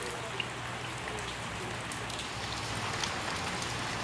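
Steady rain falling on a puddle and wet ground, with the patter of individual drops.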